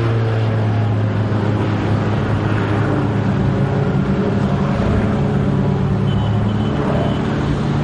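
Aerobatic propeller plane's piston engine droning at a steady pitch.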